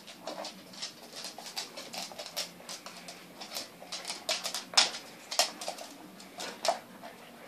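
Two dogs sniffing and snuffling at close range, with scuffling on a wooden floor: a rapid, irregular run of short snorts and rustles, the loudest a little past halfway.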